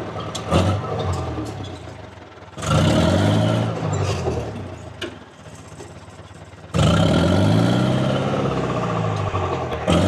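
Dresser TD7E crawler dozer's diesel engine revving hard under load as it pushes out tree stumps, with a few sharp knocks. It surges twice, a little over two seconds in and again about two-thirds of the way through, dropping back between.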